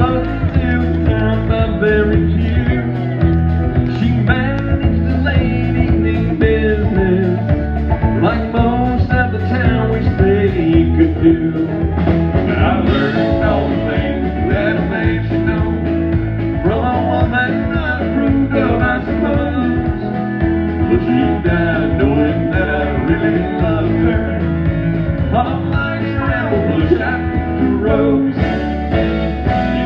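Country band playing, with guitar and singing.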